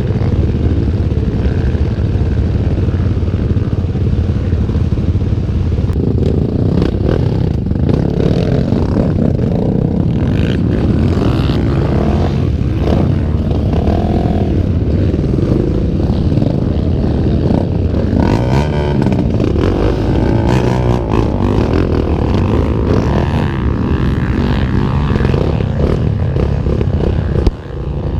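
Honda Tornado trail motorcycle's single-cylinder four-stroke engine, bored out to 319 cc, running under load off-road, its note rising and falling with the throttle, with scattered clattering from the rough ground.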